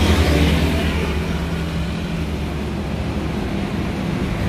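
Road traffic: a motor vehicle's engine drones nearby and fades away about a second in, leaving a steady rush of traffic noise.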